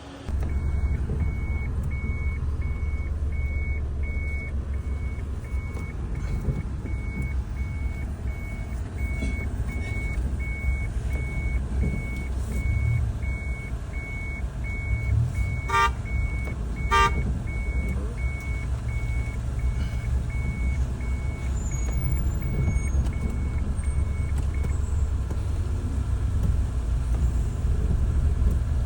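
Vehicle engine and road rumble heard from a car, with an electronic warning beep repeating about twice a second at one steady pitch; the beep stops a few seconds before the end. Two short clicks come about halfway through.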